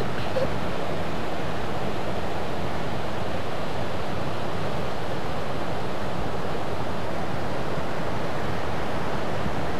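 Ocean surf breaking on a beach: a steady, unbroken rush of waves.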